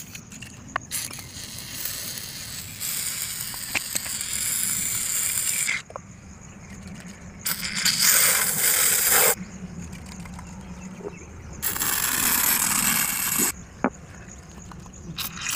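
Aerosol can of snow spray hissing as it sprays foam, in several bursts that start and stop sharply. Three of the bursts last about two to three seconds each.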